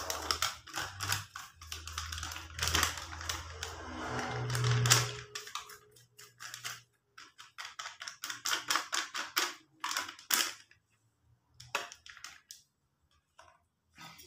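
Packet of flour mix crinkling as it is handled and shaken out over a steel bowl: a dense run of crackles for the first few seconds, then sparser crackles that die away about twelve seconds in.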